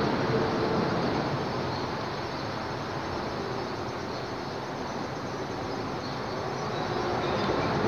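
Road traffic on the highway bridge overhead, a steady rumble that eases off in the middle and swells again near the end.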